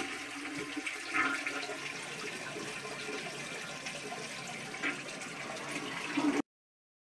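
Toilet flushing: water rushing and swirling steadily in the bowl, cut off suddenly near the end.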